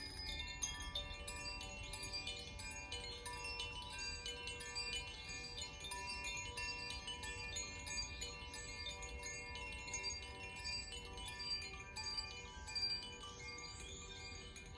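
Hand-played tuned wind chimes of the Koshi and Zaphir kind ringing continuously. Many small strikes overlap into a shimmering cluster of sustained notes.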